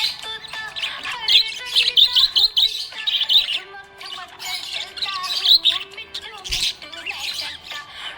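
Budgerigar chirping in quick clusters of high, rapid notes, over background music with long held notes.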